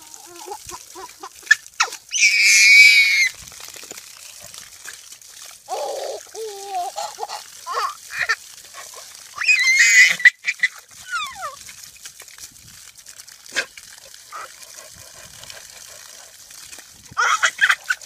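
A baby shrieking with laughter in high-pitched squeals, several separate bursts with the loudest about two seconds in and about ten seconds in.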